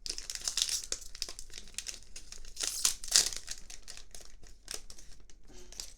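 Plastic card packaging crinkling and rustling as trading cards are handled, with small clicks throughout. It is loudest about three seconds in and dies down near the end.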